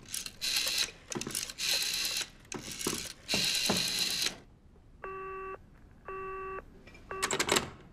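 Rotary telephone dial being wound and let spin back several times in a row, whirring and clicking. Then two short tone beeps from the earpiece, about half a second each and a second apart, and a third cut off: the call does not get through.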